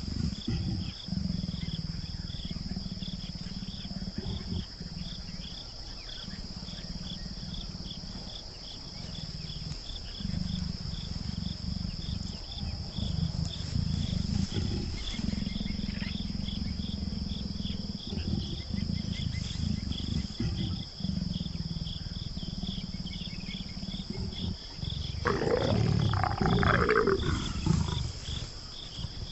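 A mating pair of leopards growling low and repeatedly, with a louder snarl near the end. Insects chirp steadily in the background.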